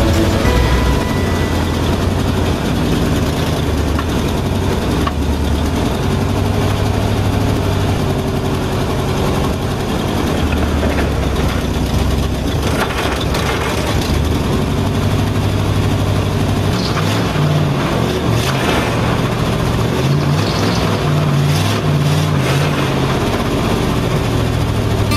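Engine of a 1959 Chevrolet Viking tow truck running under load as the truck pushes a steel shipping container across gravel, its engine speed rising and falling.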